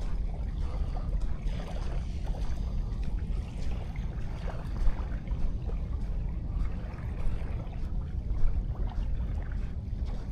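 Wind rumbling on an action camera's microphone over the steady wash of sea waves, with two brief louder bumps about halfway through and near the end.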